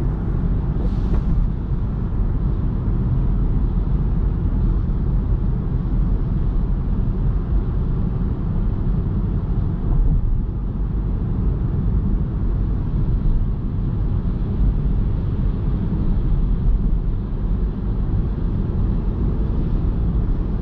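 Steady low rumble of road and tyre noise from a 2021 MINI Cooper S E ALL4 Countryman plug-in hybrid driving at an even pace.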